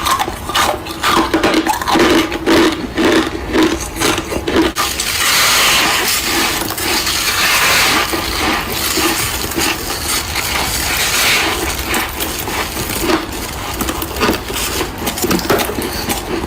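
Close-up crunching and chewing of freezer frost: a quick run of crisp crunches in a chewing rhythm, then after a sudden cut about five seconds in, denser and more continuous crunching.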